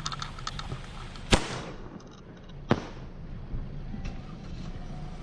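Small consumer fireworks going off on the ground: two sharp bangs about a second and a half apart, the first much louder.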